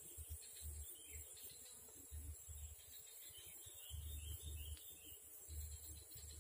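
Insects chirring in a steady, high, even drone, with a few faint higher chirps about three to four seconds in and intermittent low rumbles underneath.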